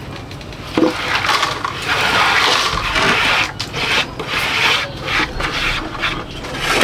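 Rough scraping and rubbing noise, a run of uneven strokes starting about a second in.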